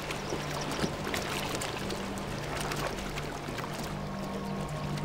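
Zebra hooves splashing and sloshing through shallow, muddy water, in scattered irregular splashes. Sustained low music notes run underneath, and higher held notes join about four seconds in.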